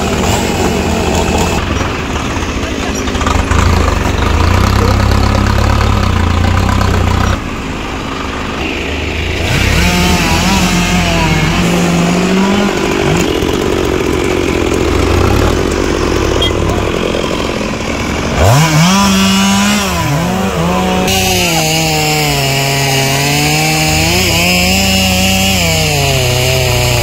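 A two-stroke chainsaw revving, its pitch climbing sharply and then rising and falling as the throttle is worked, over the low steady running of a tractor's diesel engine.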